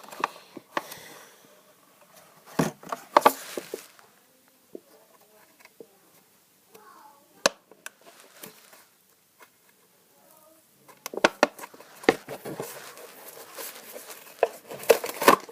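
Handling of toy packaging: scattered clicks and taps, then a denser stretch of rustling and crinkling from about eleven seconds in as the box is worked open.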